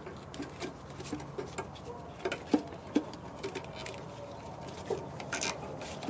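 Irregular light clicks, taps and rustling of plastic wiring and loom being handled and fitted in an engine bay, with two sharper clicks about two and a half and three seconds in.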